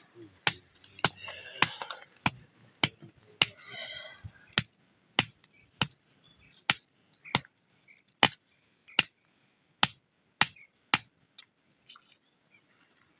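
A knife chopping raw meat, striking a hard surface in a steady run of sharp knocks about every half second that stops near the end. Early on there are two short breathy bursts of blowing on smouldering tinder.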